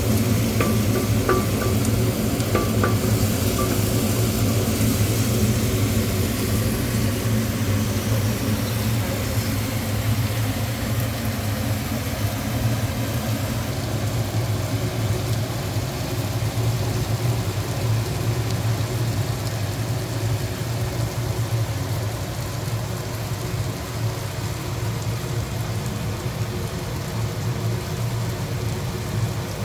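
Food frying in hot oil in a pot: a steady sizzle, with a few light ticks near the start and a steady low hum underneath.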